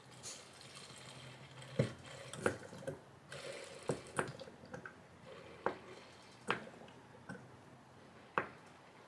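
Sublimation ink being poured from a bottle into a plastic ink-system reservoir: faint trickling and dripping, with scattered light clicks and taps of plastic.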